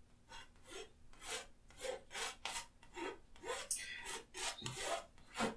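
Palette knife scraping oil paint across a stretched canvas in a run of short, faint strokes, several a second.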